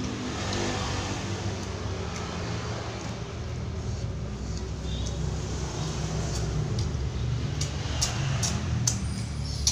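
Low, steady rumble of a motor vehicle engine running, with a few light clicks near the end.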